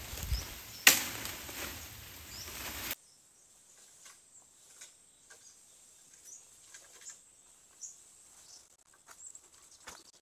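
A loud rustling hiss of bamboo foliage with one sharp crack about a second in, cut off abruptly about three seconds in. Then a quiet forest with faint crackles of footsteps and a dragged bamboo pole on dry leaf litter, and a few short high bird chirps.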